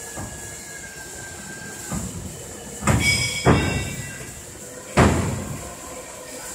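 Knocks and clanks echoing in a large workshop: a light knock, then three loud bangs over the next few seconds, one with a brief metallic ring. A faint steady high whine runs underneath.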